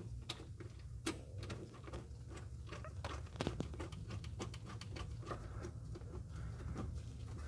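Faint, irregular small clicks and ticks of a metal hydraulic hose fitting being threaded by hand into a self-leveling suspension port, over a low steady hum.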